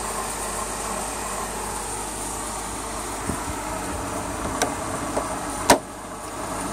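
Mercedes-Benz E500's 5.0-litre V8 idling steadily. A few light clicks come through, then a single sharp knock about five and a half seconds in.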